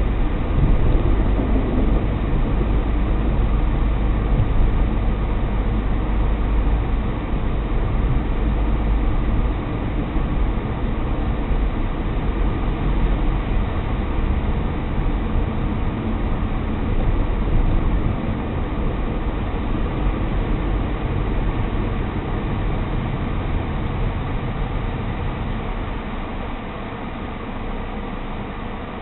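Car driving on city streets, a steady low rumble of road and engine noise heard from inside the car, growing quieter over the last several seconds.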